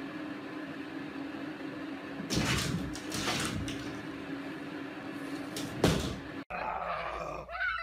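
A cat leaping up from a cat tree and scrambling through a lifted drop-ceiling tile: a second or so of rattling and scrabbling of the tile about two seconds in, then a single sharp knock near six seconds as the tile drops back into its frame. A steady low hum underlies it.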